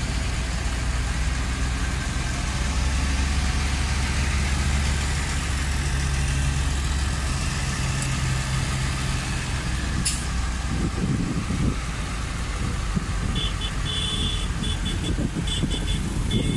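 Large farm tractors' diesel engines droning steadily as they drive slowly past in a column with car traffic. About ten seconds in there is a click, after which the sound turns to rougher rumbling road noise, with a run of short high beeps near the end.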